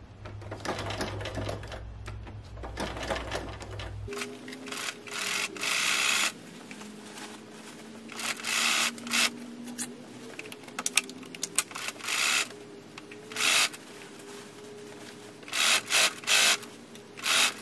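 Bernina sewing machine stitching in several stop-start runs of about one to two seconds each, sewing an invisible zipper in close to its teeth with a zipper foot. The first four seconds hold only softer rustling over a low hum before the machine starts.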